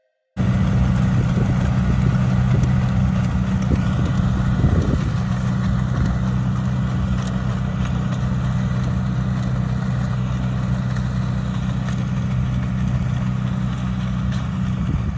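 John Deere tractor's diesel engine running steadily while it pulls a Marshall muck spreader, its rotor and flails throwing dung. It cuts in abruptly just after the start and grows a little quieter as the rig draws away.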